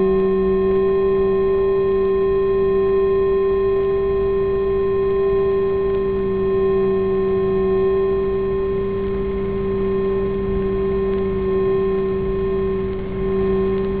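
A steady drone of several held tones, like a sustained soundtrack drone. Some of the middle tones fade out a little over halfway through.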